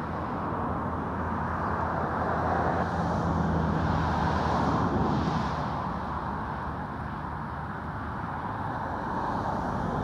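Road traffic going by, a steady rush of tyres and engines with a low hum, swelling a couple of seconds in and easing off after the middle.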